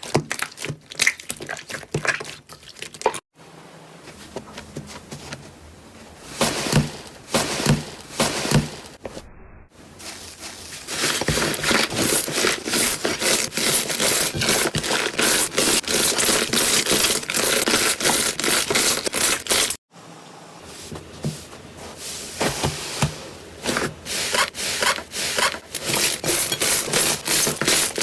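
Slime being squeezed, pressed and stretched by hand, giving dense crackling and popping clicks with some scraping. It comes in several separate stretches that cut off abruptly, and the busiest, most continuous crackling runs through the middle.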